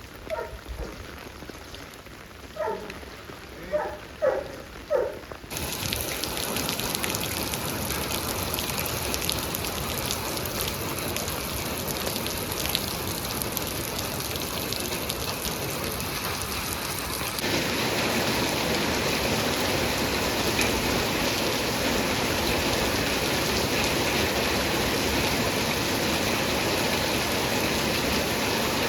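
Heavy rain falling steadily, a dense even hiss that gets suddenly louder about five seconds in and again past the middle. A few short pitched calls sound faintly in the first few seconds.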